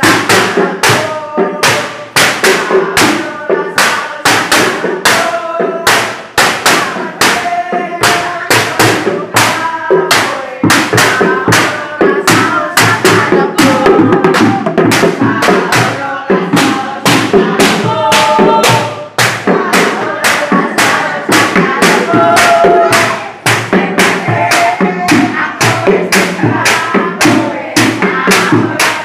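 Music with a fast, steady drum beat and a melody over it.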